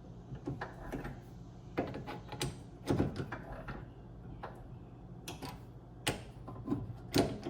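Scattered knocks and clicks of metal tools and lathe parts being handled and adjusted at a mini lathe, over a faint steady hum.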